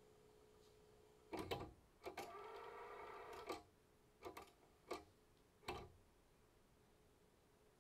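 Nakamichi CR-7A cassette deck's transport mechanism clicking and clunking as it shifts modes. A steady whir of about a second and a half comes from the tape rewinding back to the counter's zero, then a few more mechanism clicks follow as it stops. A faint steady test tone cuts off with the first clunk.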